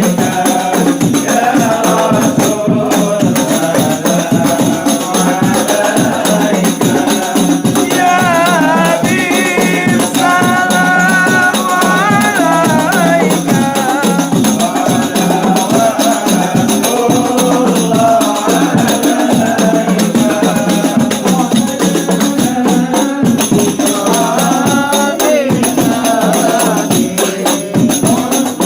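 Group devotional singing of Islamic praise songs (sholawat), voices chanting a wavering melody together over steady, rapid beating of rebana frame drums.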